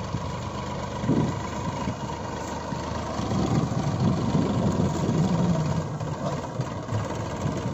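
A steady engine sound like a tractor idling, rising and falling a little.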